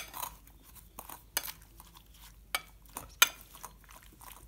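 A spoon stirring boiled kachalu pieces with tamarind and green herb paste in a glass bowl: soft wet mixing broken by sharp clinks of the spoon against the glass every second or so, the loudest about three seconds in.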